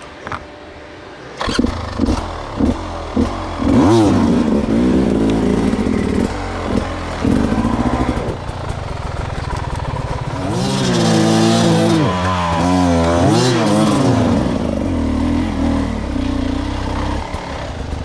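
Beta 300 two-stroke enduro motorcycle engine. It cuts in sharply about a second and a half in and takes a few quick throttle blips. It is then revved up and down hard, with a long high rev in the middle.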